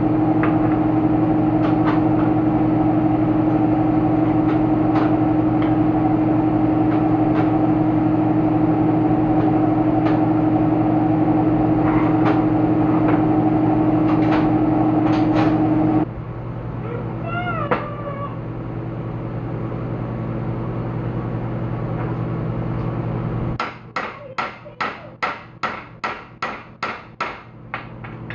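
Shop machine motor running steadily with scattered ticks, then shutting off about halfway through. A quieter hum carries on, with a brief rising-and-falling squeal soon after the shut-off. Near the end come about a dozen quick, evenly spaced strokes.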